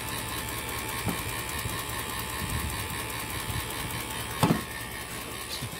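A steady low mechanical hum runs throughout, with a few knocks from handling gear; the loudest is a sharp knock about four and a half seconds in.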